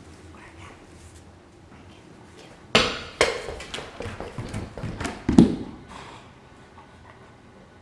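A run of knocks and thuds on a hard tile floor as a fluffy Caucasian Ovcharka puppy scrambles after its red rubber toy: the toy bouncing and the puppy's paws and claws hitting the tile. The two loudest thuds come about three seconds in and near the end of the run.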